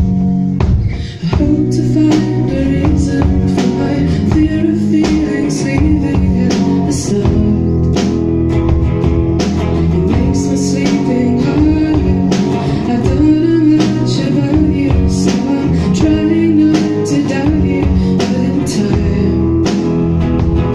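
Live indie band playing: electric guitars and a drum kit with cymbal hits, and a woman singing. The sound drops briefly about a second in, then the band carries on.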